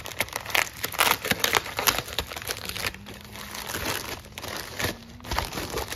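Paper shipping envelope crinkling and tearing as it is pulled open by hand: a dense run of irregular sharp crackles that thins out after about three seconds.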